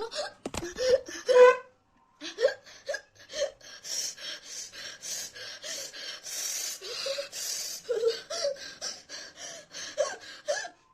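A woman gasping and hiccupping in quick, short breathy catches, about three a second. Her mouth and throat are burning from an extremely hot chili chip.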